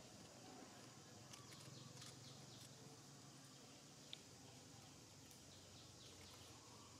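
Near silence: faint outdoor ambience with a few faint, short, high chirps and one soft click about four seconds in.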